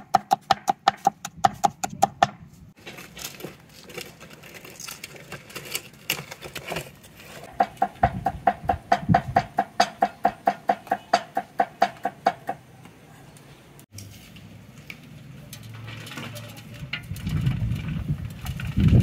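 Rapid rhythmic strikes with a clear ringing tone, about five a second, in two runs: one stopping about two seconds in and another from about eight to twelve and a half seconds in. Softer clatter comes between the runs, and a low rumble builds near the end.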